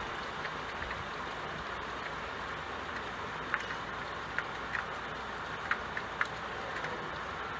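Steady rain falling, an even hiss, with a few sharp drip ticks in the second half.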